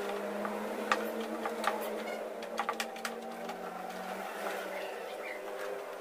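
A few sharp clicks and knocks as a wall-mounted flat-screen TV is gripped and shifted by hand, over a steady hum.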